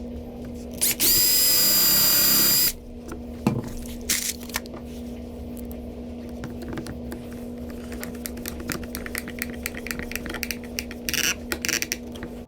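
Power drill driving #6 by 3/4 inch wood screws into a wooden part: one loud whining run of about two seconds near the start, then scattered ticks and knocks and a shorter burst near the end, over a steady low hum.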